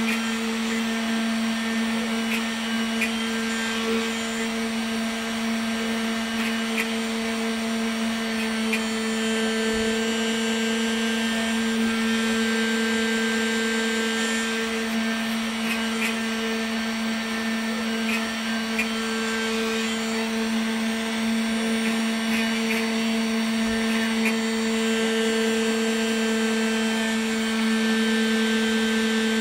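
Homemade CNC router running steadily with a constant hum while its bit carves a block of carving wax, with a few faint ticks along the way.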